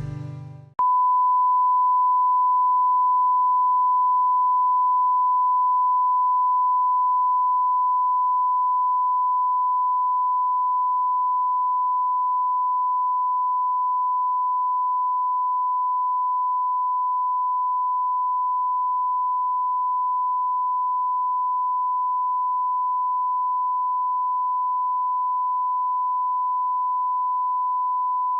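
Television broadcast test tone: one steady, unbroken pitch played over colour bars, signalling that the channel is off air for scheduled equipment maintenance. It comes in about a second in, right after the tail of some music ends.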